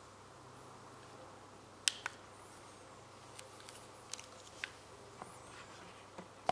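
Clicks of a TV remote as a menu option is selected: two sharp clicks close together about two seconds in, then a few fainter scattered clicks, over a low steady hum.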